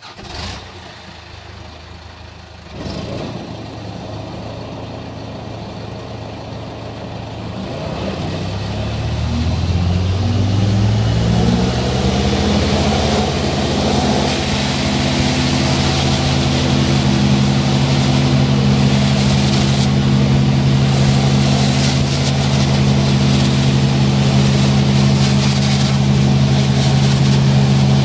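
Large truck engine running, revving up over several seconds, then holding a steady, loud drone at high revs.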